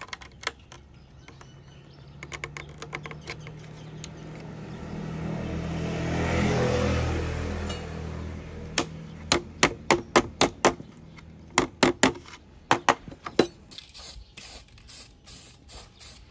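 Sharp clicks and knocks of bamboo slats being pressed and fitted into a bamboo chair frame by hand, with a passing vehicle swelling and fading about midway. Near the end, a fast run of clicks as a spray can is brought over the finished chair.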